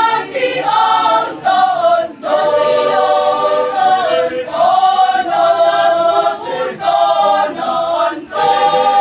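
Choir singing, its phrases broken by brief pauses for breath about every two seconds.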